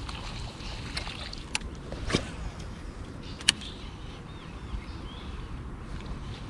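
Steady wind and water noise around a fishing kayak, broken by three sharp clicks or knocks, the loudest about three and a half seconds in.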